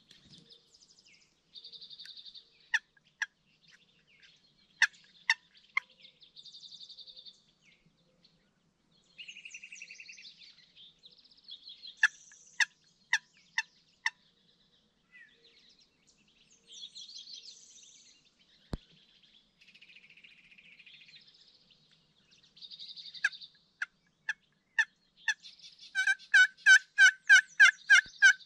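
Turkey calling: sharp single notes scattered throughout, with small birds singing trills in between, then near the end a fast run of about ten loud yelps, about four a second, the loudest sound.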